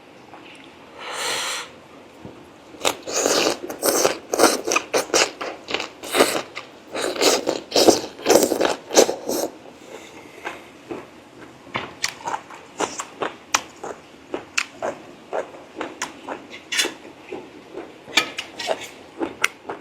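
Close-miked eating of braised pork leg: wet chewing, biting and smacking mixed with many sharp clicks as the food is handled.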